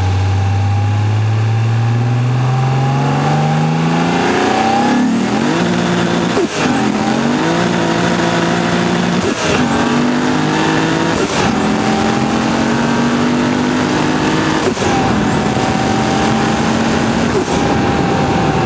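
Turbocharged 2JZ-GE inline-six of a 2002 Lexus IS300, heard from the engine bay beside its BorgWarner EFR 8374 turbocharger, pulling up through the revs. About five seconds in, a high turbo whistle rises in. It cuts out five times, each time with a short sharp burst as the throttle closes and boost is released.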